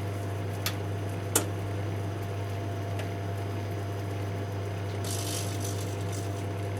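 Microwave oven running with electronics inside: a steady low hum, two sharp clicks in the first second and a half, and a short high crackle about five seconds in.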